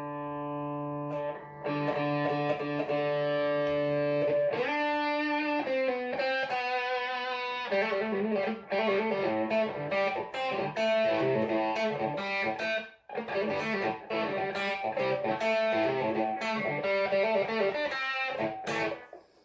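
Electric guitar played through a Boulevard Effects 3-in-1 pedal with its compressor engaged, giving long sustain. A held chord rings for about four seconds, then moves to a few single notes and a busier riff, with a brief break about thirteen seconds in.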